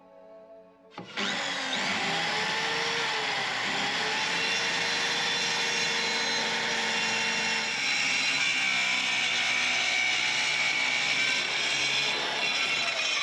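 Handheld electric planer starting up about a second in and running at speed as it cuts along old wooden boards. Its motor tone sags briefly under load, then it stops at the very end.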